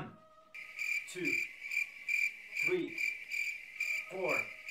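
Cricket chirping, a high pulsing trill that starts abruptly about half a second in, over a person's short strained grunts about every second and a half as they do push-ups.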